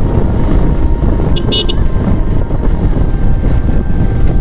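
Motorcycle ride with heavy wind rumble on the microphone over the engine, and a short high vehicle horn beep about a second and a half in.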